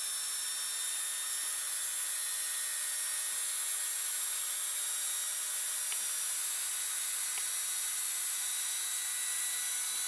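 Dremel rotary tool with a cutting-off disc running at a steady high-pitched whine as it cuts into the plastic lid of an electrical enclosure.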